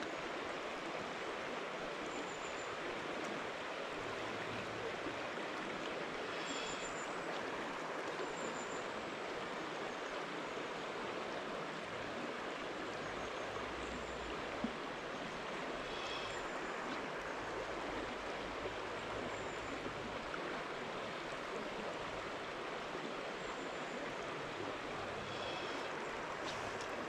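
River water flowing with a steady, even rush. A few faint, short high chirps sound every few seconds.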